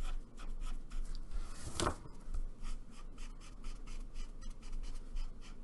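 Studio 71 alcohol marker nib stroking on paper while blending colours: a rapid run of short scratchy strokes, with one louder stroke about two seconds in.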